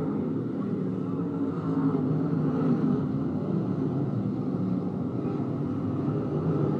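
Field of dirt-track race cars running laps on a dirt oval, their engines blending into a steady drone that swells a little about two seconds in.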